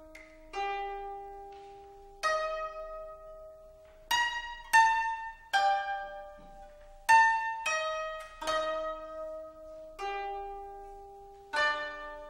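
Koto played solo: separate plucked notes, single ones and short clusters of two or three, each ringing on and fading away before the next.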